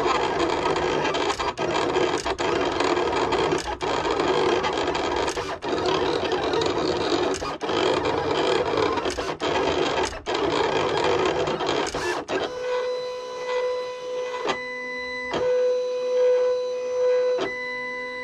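Silhouette Cameo vinyl cutter cutting vinyl: its motors whir and stutter as the blade carriage and rollers drive back and forth. About two thirds of the way through this turns into a steadier pitched whine broken by a few clicks.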